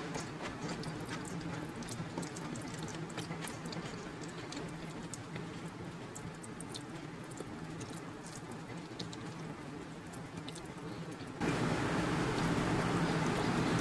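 Fingers mashing and gathering soft ghee-coated rice on a steel plate: wet squishing with many small sticky clicks. About eleven seconds in, a steady background noise suddenly gets louder.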